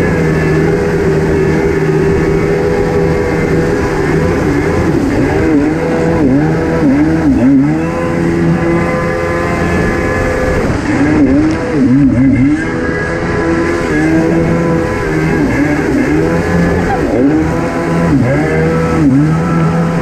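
1987 Kawasaki X2 jet ski's two-stroke engine running under way, its pitch dipping and rising several times in the middle as the throttle is eased off and opened again.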